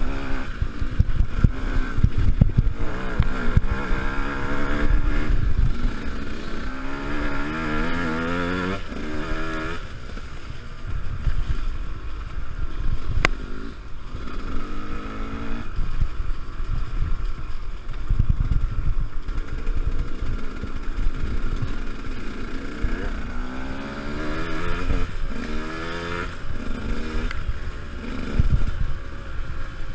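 Enduro dirt bike engine being ridden, its pitch repeatedly climbing as the throttle opens and dropping back on the shifts or on closing the throttle. Low rumble and knocks run underneath, with one sharp click about halfway through.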